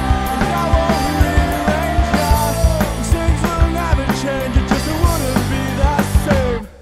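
Background rock music with a drum kit and a gliding melodic lead, ending abruptly near the end.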